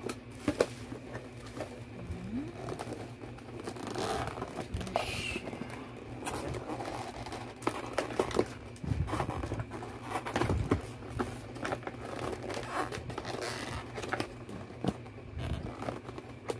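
Irregular crinkling and rustling of packaging, with scattered scrapes and taps, as the cardboard box of a ring light is opened and its contents handled.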